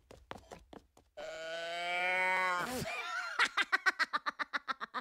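A Minion's voice offscreen: a long, held wailing cry of about a second and a half that falls off at the end, followed by a rapid string of short cries or giggles, about six a second. Faint quick taps come before the cry.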